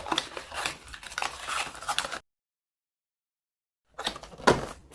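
Rustling packaging with light clicks and knocks as the lamp's parts are unpacked and handled. It drops out to dead silence for about a second and a half in the middle, then the handling noise resumes with a couple of sharp knocks.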